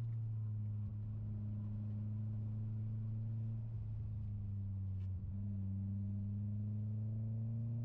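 Mitsubishi Lancer Ralliart's turbocharged 2.0-litre four-cylinder engine droning steadily at part throttle, heard from inside the cabin. Its pitch dips slightly about five seconds in and starts to climb again near the end.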